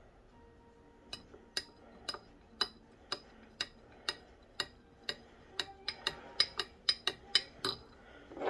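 Metal spoon clinking against the inside of a glass jar of tea as honey is stirred in, each clink ringing briefly. The clinks come about twice a second, then quicken to several a second and grow louder in the later part.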